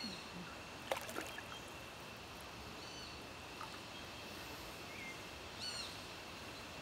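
Tropical forest ambience: a steady high-pitched insect drone over an even background hiss, with a few short bird chirps, the clearest about three seconds in and near the end.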